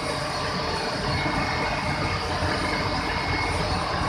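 Steady industrial noise of sugar-mill machinery and venting steam: a low rumble under an even hiss.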